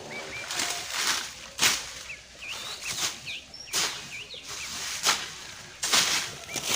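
Repeated swishing, rustling strokes at uneven intervals, like leafy vegetation being cut or handled, with small birds chirping between them.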